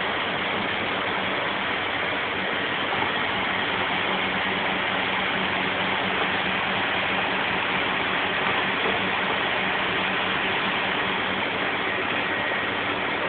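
Steady rushing noise of a commercial kitchen, from lit gas burners under the pans and the kitchen's extraction, with a faint low hum under it.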